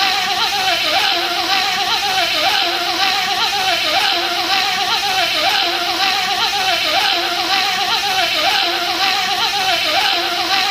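A man's voice making a buzzing bee imitation: a continuous wavering, nasal buzz that repeats the same short phrase about every second and a half, like a looped clip.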